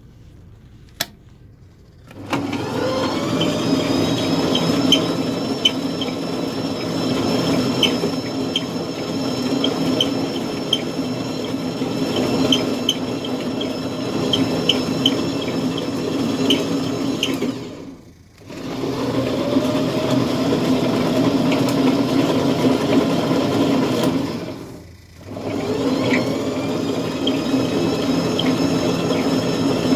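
Electric drive motor of a horizontal glassworking lathe switching on with a rising whine and running steadily with a light regular ticking. It stops and restarts twice, winding up again each time. A single sharp click comes about a second before it first starts.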